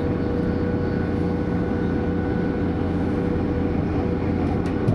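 Steady running noise inside a DB Class 641 'Walfisch' diesel railcar on the move: a dense low rumble of engine and wheels on the track, with a steady high tone held through it. There is a single short knock near the end.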